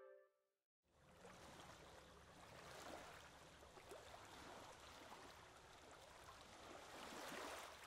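A brass music cue ends, and after a moment of dead silence comes faint shoreline ambience: small waves washing in gently, swelling softly every few seconds.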